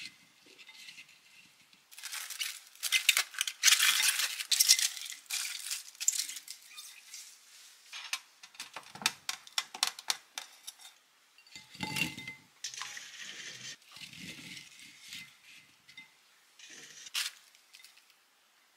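Kitchen handling sounds: chunks of cut sweet potato clattering in a ceramic bowl and being tipped onto a metal tray, densest from about two to five seconds in. Plastic cling wrap crinkles near the end.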